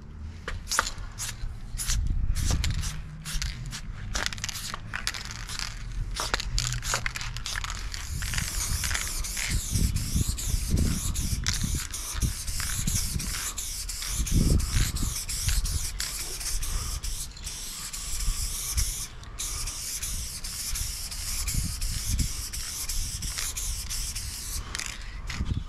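Aerosol spray-paint can hissing as paint is sprayed onto a wall: short spurts at first, then long, nearly unbroken spraying from about a third of the way in, with a couple of brief breaks.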